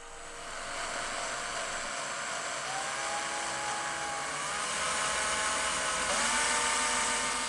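Hand-held electric drill spinning the crankshaft of a miniature V-12 engine, a whirring over a steady hiss whose pitch steps up slightly about three seconds in and again about six seconds in.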